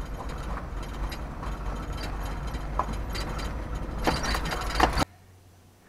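A vehicle driving slowly, heard from inside the cab through an open window: a steady low rumble with scattered clicks and rattles. It cuts off abruptly about five seconds in, leaving only a faint background.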